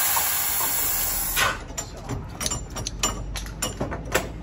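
Compressed air hissing steadily from the air brake hose between a diesel locomotive and its coach as they are uncoupled, cutting off suddenly about a second and a half in. Then comes a run of light metallic clicks and knocks from the coupling gear being worked by hand.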